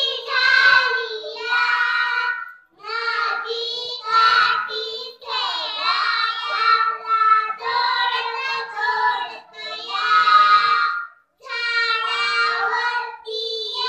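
Three young girls singing a song together into a microphone, in phrases broken by short pauses for breath.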